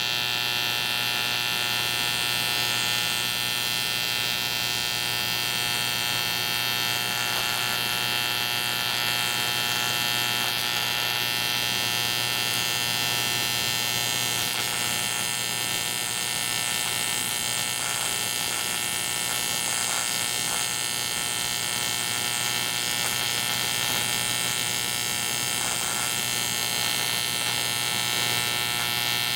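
Steady buzz of an AC TIG welding arc on an aluminum Harley-Davidson knucklehead crankcase, holding even throughout, with a mains-hum undertone.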